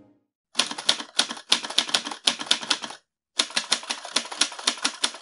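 Typewriter typing sound effect: quick key clacks, several a second, in two runs with a short pause between them just after the middle.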